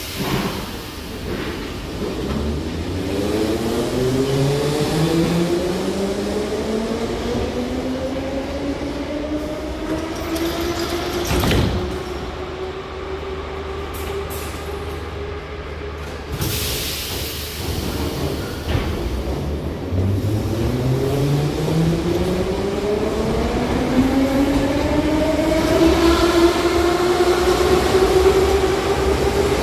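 Moscow metro trains of the 81-717 family pulling away, their traction motors' whine rising steadily in pitch as they accelerate, twice: once early on and again from about two-thirds of the way in. A sharp click comes about midway, and a short burst of hiss follows a few seconds later.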